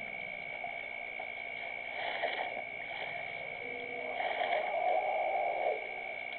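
Elephant drinking at the edge of a waterhole, with a short rushing splash about two seconds in and a louder, longer one from about four seconds to nearly six. Under it runs a steady high-pitched whine and a constant hiss of night ambience.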